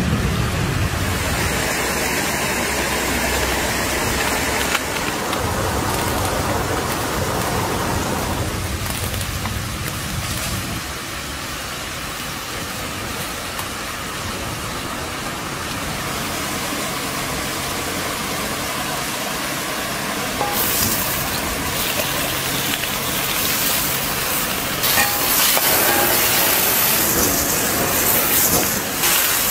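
Cooking over an open wood fire: a steady hiss of food sizzling and the fire burning. In the last third it grows louder and crisper, with many small crackles, as a wok flares over high flame.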